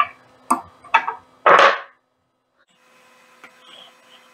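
Metal clicks from a hex wrench and small steel screws being handled on a mini lathe: three sharp clicks in the first second, then a louder, longer clatter about a second and a half in.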